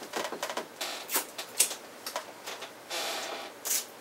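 Forks clicking and scraping against plates as pudding is cut and eaten, in irregular short strokes, with a longer scrape near the end.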